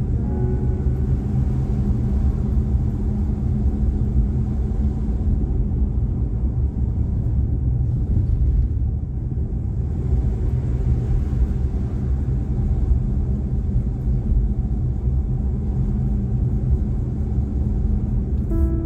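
Steady low rumble of a car on the move, heard from inside the cabin: engine and tyre noise. Background music comes back right at the end.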